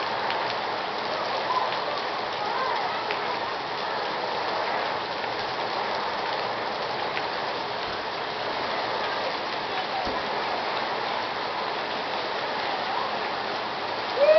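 Torrential rain pouring down on a paved parking lot and parked cars: a steady, dense hiss of heavy rainfall.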